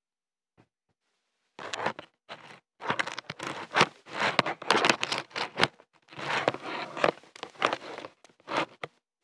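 Loud rustling, scraping and crinkling right against the phone's microphone, in irregular bursts from about a second and a half in until just before the end: handling noise as the phone is moved about and covered.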